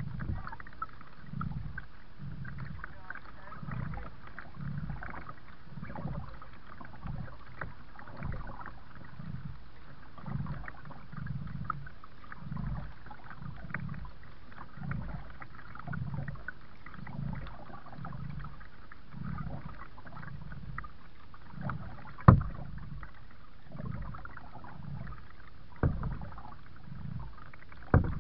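Kayak paddle strokes dipping and pulling through the water in a steady rhythm, a little more than one stroke a second. A sharp knock about three-quarters of the way through is the loudest sound, with two smaller knocks near the end.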